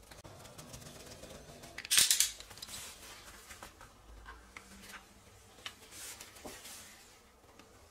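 Utility knife and hands working a block of folded croissant dough on a worktop: a loud, brief scrape about two seconds in, then a few light clicks and ticks as the blade cuts the folded edges.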